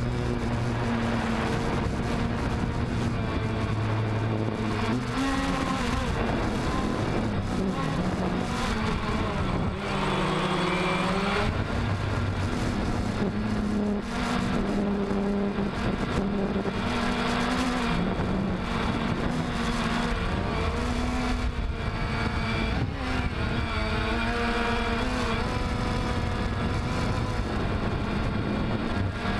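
DJI Phantom quadcopter's electric motors and propellers whining, heard up close from a camera mounted on the drone itself. The pitch keeps rising and falling as the throttle changes, with marked swoops about a third of the way in and again late on.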